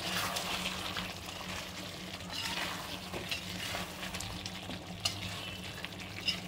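Metal spoon stirring and scraping chicken through a thick cream and yogurt masala in a metal kadhai, with a soft sizzle on low flame. Two sharp clinks of the spoon against the pan come near the end.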